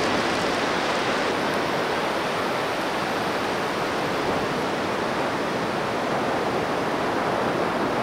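Steady, even wash of surf breaking and running up a sandy beach.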